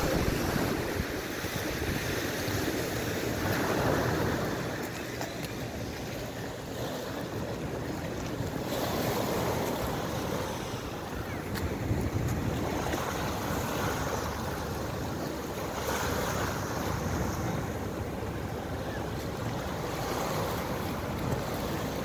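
Small sea waves breaking and washing up a pebble beach strewn with driftwood, swelling every few seconds, with wind buffeting the microphone.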